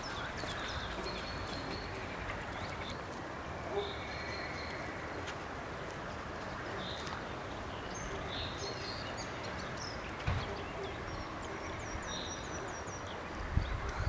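Small songbirds chirping and calling now and then over a steady background hiss, with a short high trill near the end. A few low thumps come about four seconds in, about ten seconds in and near the end.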